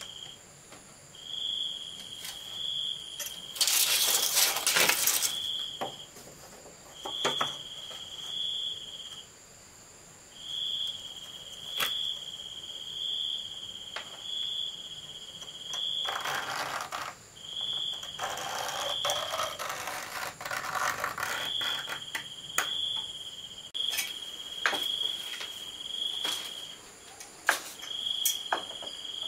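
Insects trilling in repeated phrases of a few seconds at one steady high pitch. Two louder stretches of harsh noise break in, a short one about four seconds in and a longer one in the middle, along with scattered sharp knocks.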